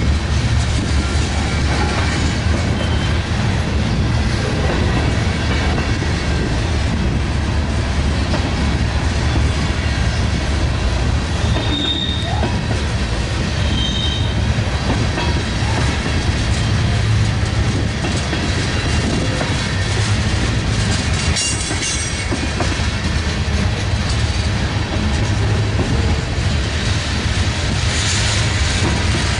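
Freight train cars rolling steadily past, wheels clacking over the rail joints, with two short high wheel squeals about halfway through.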